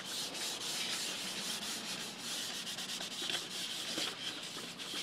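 Fingers rubbing masking tape down onto foam core board, a continuous scratchy rubbing that eases off near the end.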